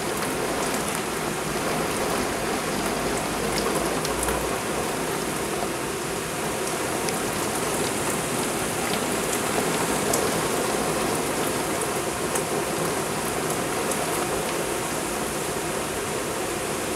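Torrential rain pouring down in a steady, dense hiss, with scattered sharp ticks of drops striking nearby surfaces.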